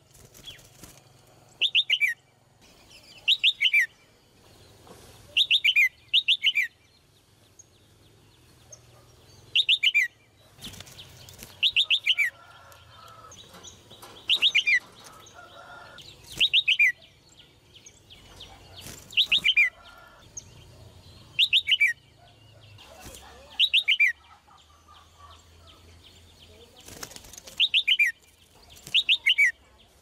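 Red-whiskered bulbul calling: a short, bright phrase of two quick falling trills, repeated about every two seconds.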